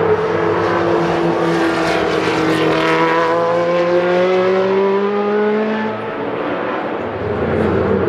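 Can-Am race car engine under acceleration, its pitch climbing steadily for about six seconds before dropping away near the end.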